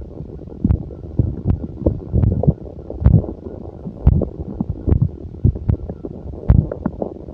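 Human stomach growling: irregular low gurgles and rumbles from the belly, broken by short sharp pops every half second or so.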